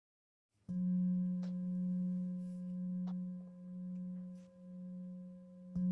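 A therapy singing bowl is struck about a second in and rings with a deep, steady hum over fainter higher overtones, its loudness slowly swelling and fading. It is struck again near the end.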